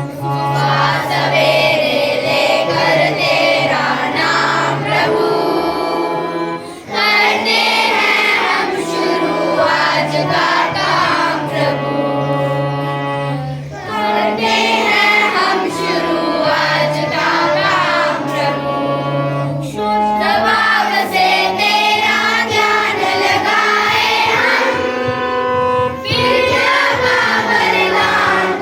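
A group of children singing a song together over held low instrumental notes, in phrases with short breaks between them.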